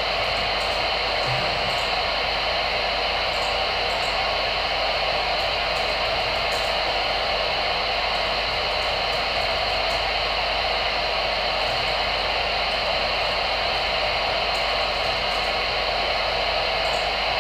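Steady hiss of receiver static from a Voyage CB radio tuned to channel 22 (27.225 MHz), the squelch open and no station transmitting.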